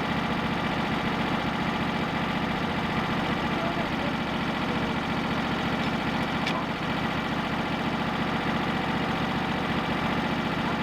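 Portable band sawmill's engine running steadily at an even pitch.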